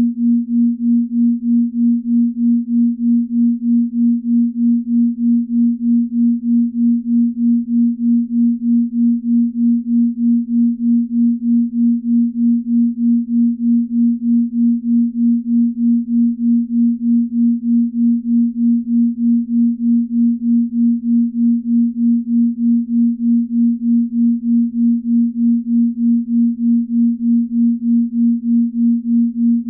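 Binaural-beat tone: a single low, pure sine tone held steady, pulsing evenly about three times a second. The pulsing is the slow beat between two nearly matched tones, the kind used as a deep-sleep beat.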